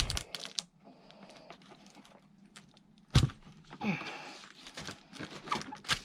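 Two heavy neodymium magnet-fishing magnets knocking and scraping against each other and the work surface as they are handled and pulled apart, with several sharp knocks, the loudest about three seconds in.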